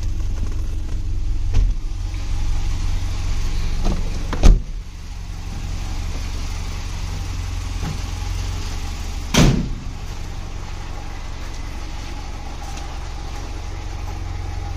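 Car engine idling with a steady low hum. A car door shuts about four and a half seconds in, with a lighter knock earlier and a second thump about nine and a half seconds in.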